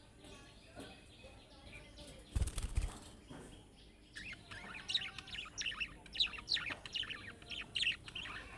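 Budgerigars chirping in quick, short notes from about four seconds in. A brief burst of wing flapping comes a little over two seconds in.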